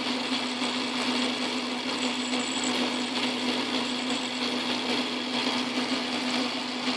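Metal lathe running with a steady hum while a cutoff tool parts off a small workpiece.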